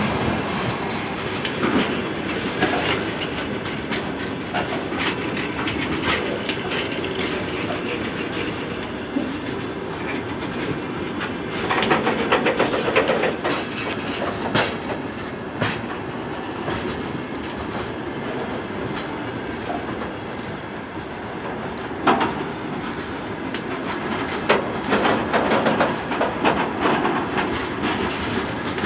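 Freight train of four-axle open gondola wagons rolling past, a steady rolling noise from the wheels on the rails, broken by bunches of sharp knocks as the wheels cross rail joints.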